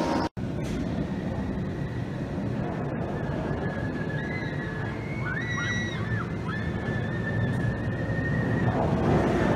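Wildfire's steel roller coaster train rushing down its first drop and through the vertical loop: a steady rumble of the train on the track. A thin high tone is held over it from about four seconds in until near the end. The sound cuts out for an instant just after the start.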